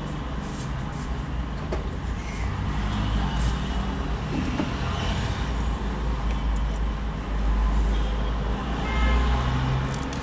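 Steady low rumble of passing road traffic, with a few light metallic clicks of a wrench being fitted to the AC compressor's mounting bolts.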